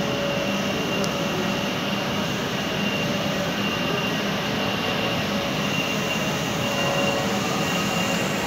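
Steady, loud din of printing-plant machinery running on a factory floor: a dense mechanical noise with a high steady whine through it.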